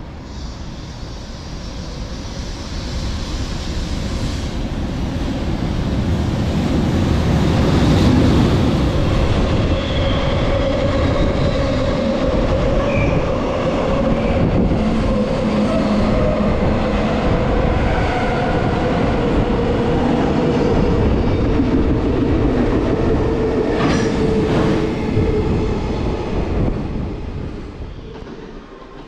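Long freight train hauled by an EH500 electric locomotive passing through a station without stopping: a rush of steel wheels on rail that builds as the locomotive arrives, holds loud and steady with wheel clatter as the container wagons go by, and fades as the tail passes near the end.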